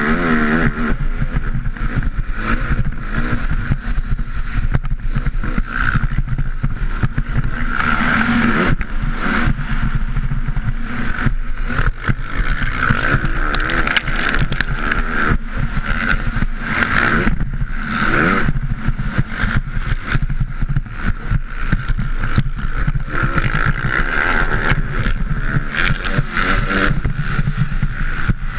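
A motocross bike's engine, heard from the rider's helmet, revving up and dropping back again and again as he races the track.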